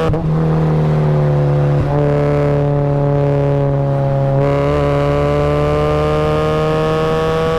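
Supercharged Mazda Miata's four-cylinder engine running hard: revs fall off the throttle at the start, with a brief break about two seconds in, then climb steadily through the second half as it accelerates again.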